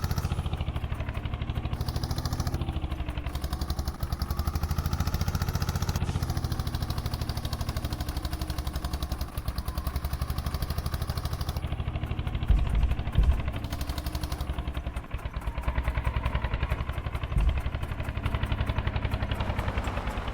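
Heavy diesel engine running steadily with a fast, even firing pulse, its pitch rising and falling slightly in the first few seconds. A few short, loud low thumps come a little past halfway and again near the end.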